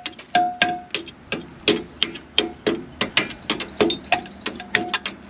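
Hammer striking rusted steel in quick repeated blows, about three to four a second. Several strikes leave a short metallic ring, mostly in the first second and again near the end.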